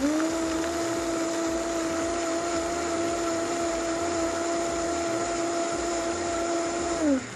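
Vitamix blender motor running on high, crushing ice into a frozen drink, with a steady whine. Its pitch steps up right at the start as it is switched up to high, and near the end it is switched off and winds down with a falling pitch.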